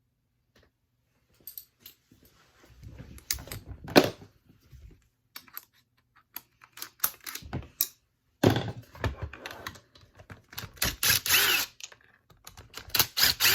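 A ratchet and 8mm socket clicking in quick runs as nuts are loosened, mixed with small metal clinks of tools and parts, in irregular bursts with a sharp knock about four seconds in.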